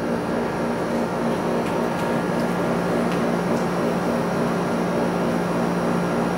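A steady low mechanical hum that runs without a break.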